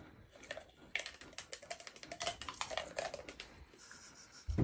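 Dog toothbrush scraping and clicking against an Alaskan Malamute's teeth as the dog chews and licks at it, a quick irregular clatter of small clicks. A thump and a low hum come in near the end.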